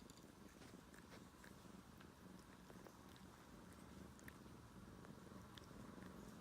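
A domestic cat purring faintly in a low, even rumble, with a few soft clicks.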